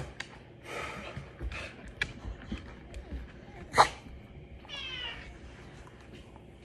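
Dog whining in play, one short high whine with falling pitch about five seconds in, among scuffling and clicks of the dogs moving about. A sharp knock, the loudest sound, comes just past the middle.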